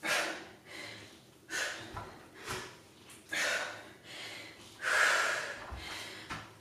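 A woman's heavy breathing from the effort of dumbbell deadlifts: about five sharp, forceful breaths a second or so apart. Two dull thuds of the dumbbells touching the floor mat come in between.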